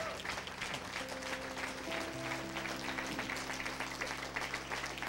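Congregation applauding, a dense patter of many hands clapping, over soft sustained musical chords that change a few times.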